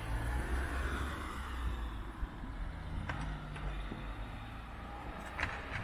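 Low rumble of road traffic, with a few faint clicks a little after three seconds and near the end.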